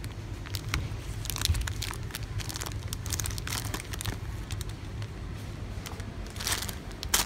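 Plastic gummy-candy bags crinkling as they are handled and taken off a shelf, in short irregular crackles over a steady low hum, with the loudest crinkles near the end as a bag goes into a shopping basket.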